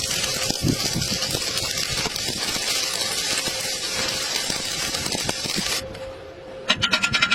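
Electric welding arc crackling and sizzling steadily, cutting off about six seconds in. Near the end comes a rapid pulsing buzz with a steady high tone.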